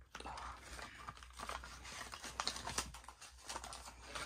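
Packaging being handled: a run of small irregular clicks and crinkles.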